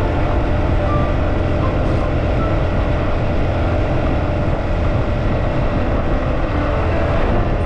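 Steady vehicle road noise with wind rushing over the microphone while riding along a highway, a constant low rumble that does not change.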